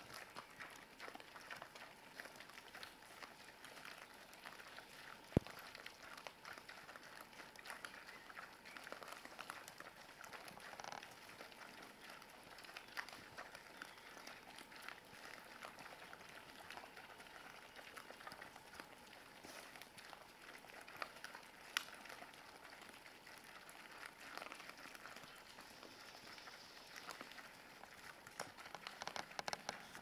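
Wild boar and striped piglets crunching and rooting through scattered grain: a faint, steady crackle of chewing and snuffling, with a single sharp click about five seconds in.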